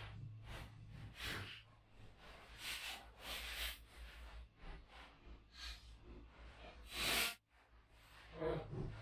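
A few short rustling and handling noises over a steady low hum, the loudest about seven seconds in, then the sound drops out suddenly for a moment.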